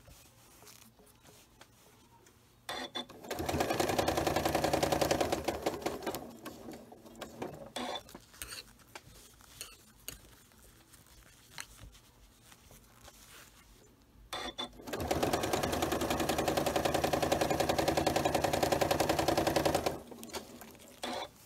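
Janome Memory Craft 9450 sewing machine stitching through a quilt with its walking foot fitted. It stitches in two runs of rapid, steady needle strokes: a short run starting about three seconds in, and a longer one of about five seconds starting around fourteen seconds in.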